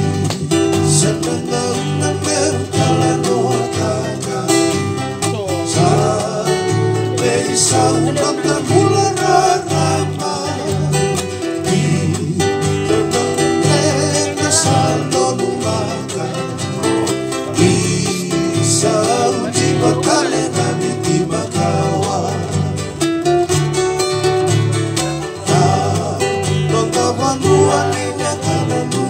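Live band music: plucked guitars over steady low bass notes, with a voice singing at times.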